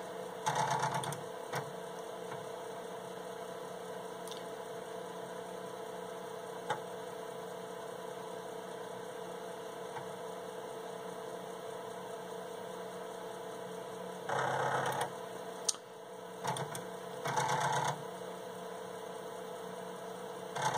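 Intertec Superbrain computer's steady running hum, with its floppy disk drive chattering in short bursts of about a second. The bursts come about half a second in and three more times near the end, as the assembler reads in the next source file from disk.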